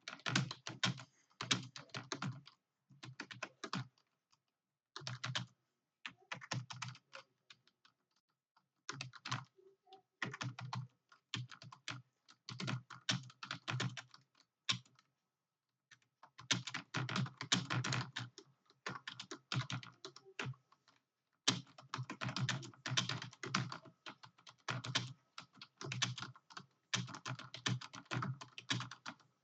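Computer keyboard being typed on fast, in runs of rapid keystrokes broken by brief pauses, two of them longer: about 8 seconds in and about 15 seconds in.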